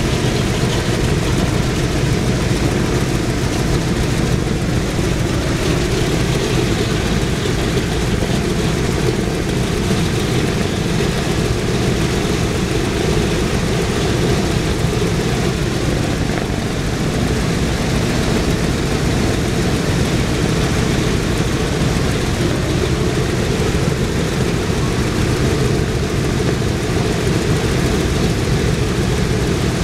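Boeing B-17's four Wright R-1820 Cyclone nine-cylinder radial engines idling together on the ground after start-up, a loud, steady running sound with no change in speed.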